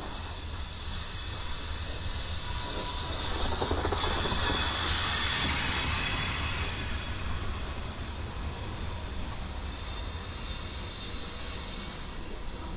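Freight train rolling past on the rails, its wheels squealing in high thin tones over a low rumble; the squeal swells to its loudest about five seconds in, then eases.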